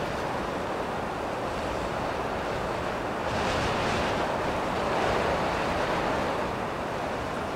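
Steady rushing open-air noise with no distinct events, swelling a little a few seconds in.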